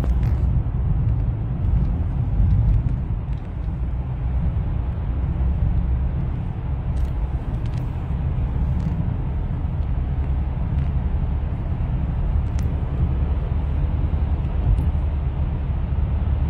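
Car driving at speed through a road tunnel, heard from inside the cabin: a steady low rumble of engine and tyre noise, with a few faint clicks.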